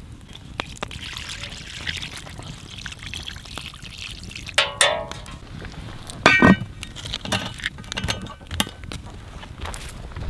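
Liquid pouring and trickling, with two short ringing clinks about four and a half and six seconds in.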